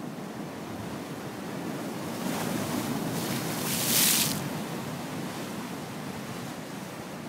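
Storm-driven sea waves breaking and surging over rocks, a steady rushing wash. The surf builds from about two seconds in to a loud crash and hiss of foam about four seconds in, then eases back.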